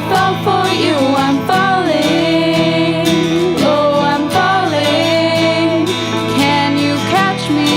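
Pop-rock song with sung vocals over guitar, bass and drums.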